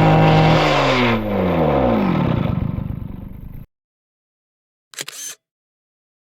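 Two-stroke chainsaw engine running at high revs while driving 3D-printed plastic gears, with clatter and scraping. About a second in, its pitch starts falling as it winds down. The sound cuts off abruptly about three and a half seconds in, and a short burst of noise comes around five seconds.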